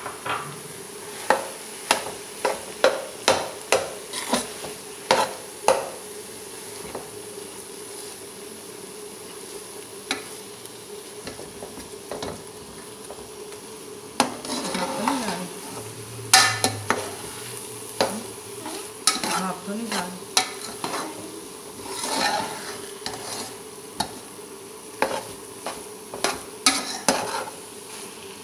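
Steel slotted spatula scraping and knocking against an aluminium pot as thick grated-carrot halwa is stirred and fried, with a faint sizzle underneath. The strokes come in irregular runs, thinning out for several seconds in the middle and picking up again. This is the long frying-down stage that dries off the halwa's last water.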